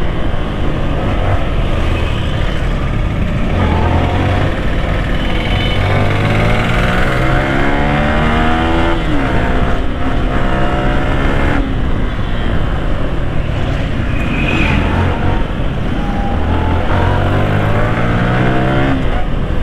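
Yamaha R15 V3's 155 cc single-cylinder engine running hard in traffic, its pitch climbing as it accelerates and falling back several times.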